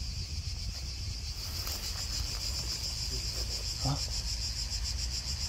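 A steady chorus of cicadas, a shrill high buzz with a fast pulsing texture, growing a little louder about a second and a half in.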